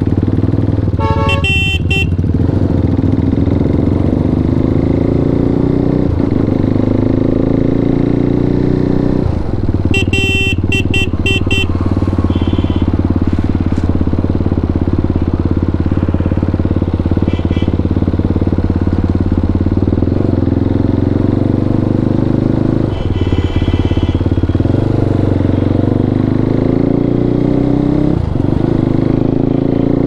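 KTM RC 390's single-cylinder engine running through a full Akrapovic exhaust while riding, its pitch rising in long sweeps under throttle and dropping back sharply several times. Short bursts of higher-pitched tones cut in over the engine now and then.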